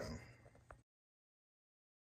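The tail of a man's spoken word fading out, then dead digital silence from an edit cut.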